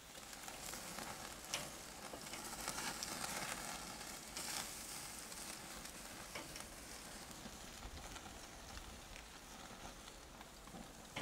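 Tiger prawns sizzling on a charcoal barbecue grate: a steady hiss with a few sharp clicks as metal tongs lift them off the grill.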